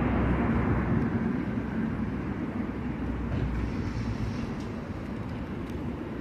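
Steady low outdoor rumble, easing off slightly over the first few seconds.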